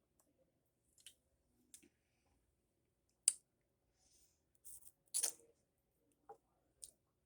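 Licking and sucking on a large lollipop: a scattering of short, faint wet mouth clicks and lip smacks, spaced irregularly, the loudest about three seconds in and about five seconds in.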